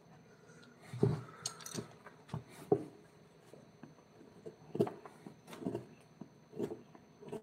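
Irregular light knocks and taps on wood, about one or two a second, with a short scrape near the start.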